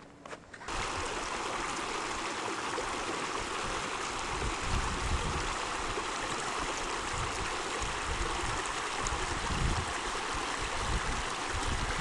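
Small mountain creek running over rocks: a steady rushing of water that starts abruptly about a second in.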